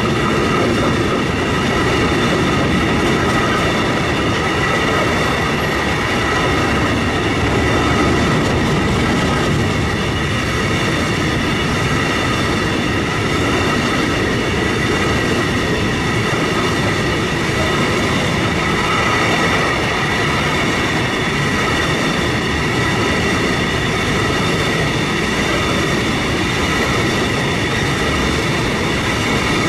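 Loaded freight train of covered hopper wagons rolling past close by: a steady, loud rumble of steel wheels on rail, with several high ringing tones held steadily over it.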